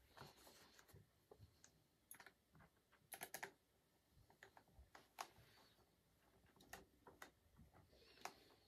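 Faint small clicks and taps of a precision screwdriver and tiny screws being worked at the battery screws of an open MacBook Air, with a quick cluster of clicks about three seconds in.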